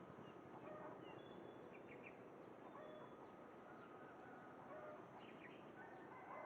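Faint bird calls: scattered short chirps and brief notes over steady background noise.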